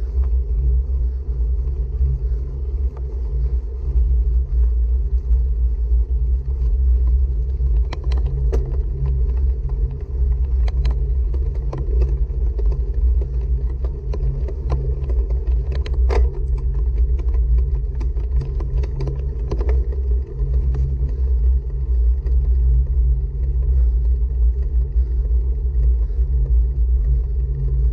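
Steady low rumble of riding noise from a road bike climbing on tarmac, wind and tyre rumble as picked up by the rider's own microphone. Scattered light clicks come through the middle stretch.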